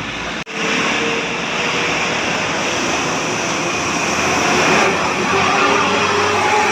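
A large bus passing close by, its engine and tyre noise steady and growing a little louder toward the end, after a sudden cut about half a second in.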